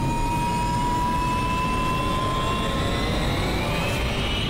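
Airplane engine running with a steady rumble and a thin whine that climbs slowly in pitch.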